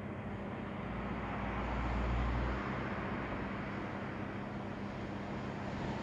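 Steady background noise with a constant low hum, and a deep rumble that swells and then drops away between about one and two and a half seconds in.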